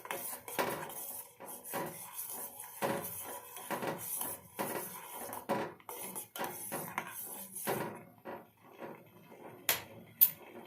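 A spoon stirring simmering kadha in a pot, scraping and clinking against its sides in a quick, uneven run. The stirring stops about eight seconds in, followed by two sharp clicks near the end.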